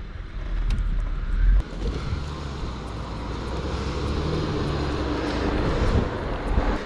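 A vehicle's engine running on a dirt off-road track, with a deep rumble that cuts off about a second and a half in.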